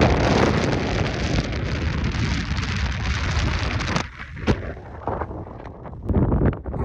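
Strong mountain wind buffeting the microphone in loud gusts; it eases off briefly about four seconds in and gusts up again near the end.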